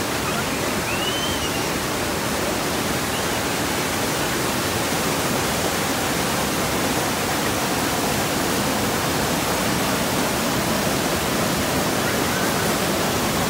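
Fast whitewater of a river near its springs, a steady, even rush of water. A faint short chirp comes about a second in.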